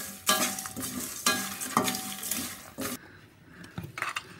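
Steel spatula scraping and stirring roasted spices and lentils in a stainless steel kadai, the spices crackling in the pan's heat. The stirring stops about three seconds in, followed by a few faint clicks of a steel mixer-grinder jar being handled.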